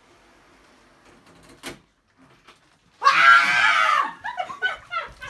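A woman screams loudly in fright about three seconds in, a single high scream lasting about a second, then breaks into short, shaky vocal gasps. A single short click comes earlier.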